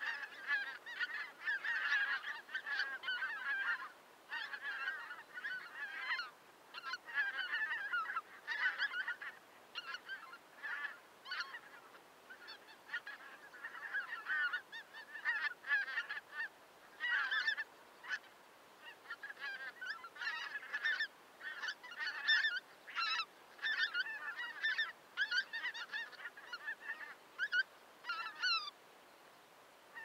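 Greater white-fronted geese calling in quick, overlapping honks, with a brief lull about four seconds in; the calling stops shortly before the end.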